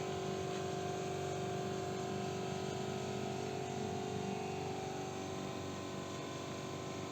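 A steady mechanical hum of a running machine, with a fixed pitch and a constant level.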